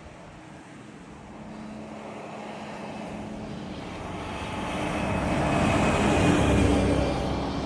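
A truck climbing a hill and passing, its engine drone and tyre noise growing steadily louder, loudest about six to seven seconds in, then easing slightly.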